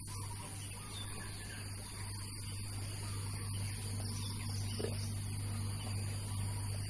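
Steady high-pitched insect trilling, like crickets, that holds at two even pitches, over a low steady hum.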